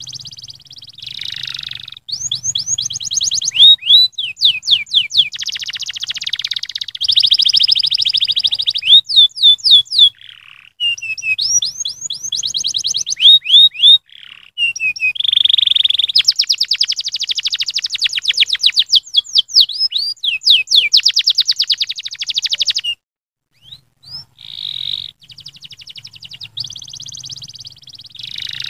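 Domestic canary singing a long, high-pitched song of fast trills and rolls, runs of rapid sweeping notes and repeated chirps, with a brief break about three-quarters of the way through.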